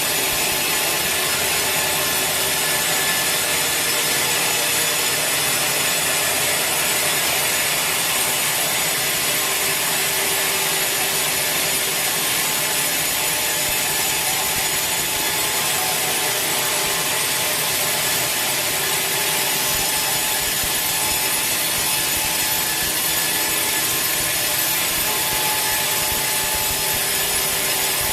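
Sawmill saw cutting steadily through a large teak log: an unbroken hiss of the blade in the wood at an even level, with faint steady tones from the machine underneath.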